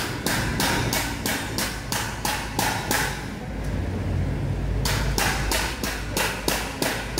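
Hammer striking metal in quick, even blows, about three a second, stopping for under two seconds midway and then starting again.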